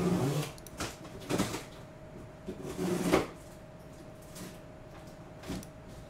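A few sharp clicks and two louder, brief rustling noises, over a faint steady hum.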